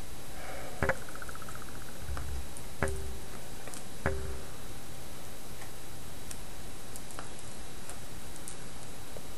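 Small tools and phone parts clicking and tapping as a smartphone is taken apart, with three sharper clicks about one, three and four seconds in and faint ticks between, over a steady low hum.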